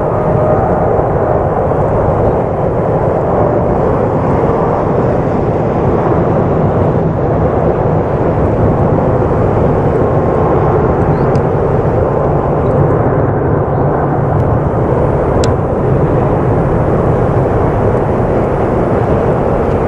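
Twin-engine jet airliner on its takeoff roll, engines at takeoff thrust: a loud, steady rush of jet noise that holds level throughout.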